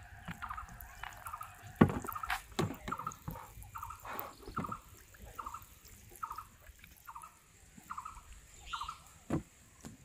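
Sharp knocks and thumps of a plastic bucket and flip-flops on a bamboo raft, the loudest about two seconds in, over an animal's short call repeated about one and a half times a second.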